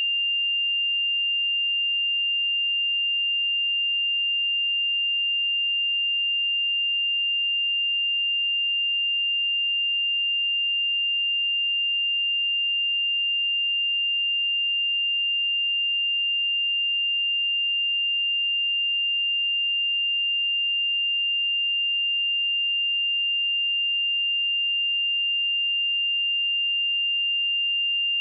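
A pure 2796 Hz sine-wave test tone, one steady high-pitched note held without change.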